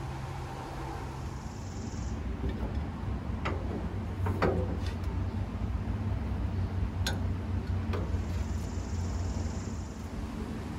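A few separate light metal clicks and knocks as a steel angle-iron floor-frame piece is handled and set into place in a car body, over a steady low hum.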